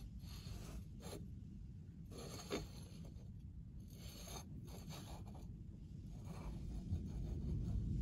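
A crank pulley with a metal 36-1 trigger wheel being handled and turned on a metal workbench: several short scrapes and rubs of metal on metal over a low background rumble.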